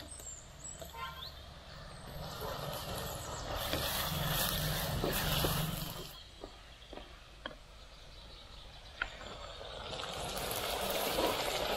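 Onions, green chillies and whole spices sizzling as they fry in oil. The hiss swells and cuts off twice, with a few light clicks in between.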